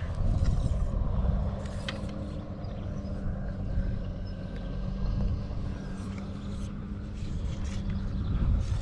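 A motor running steadily over a low rumble, its even hum holding from about a second in until about seven seconds in.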